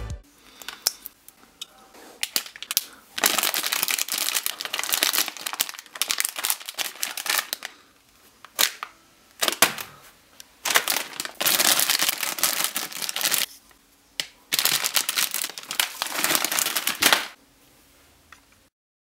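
Plastic snack packets crinkling in three long bursts as they are folded over and fastened with a 3D-printed bag clip, with scattered sharp clicks between the bursts.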